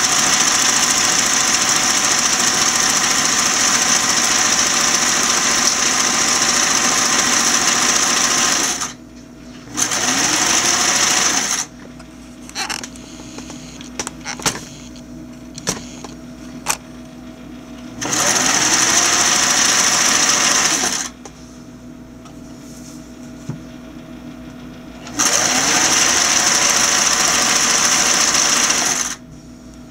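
Singer 347 sewing machine running at speed in four bursts: one long run of about nine seconds, then shorter runs of two to four seconds. Each burst starts with a rising whine as the motor spins up. Between runs there are scattered clicks and handling noises.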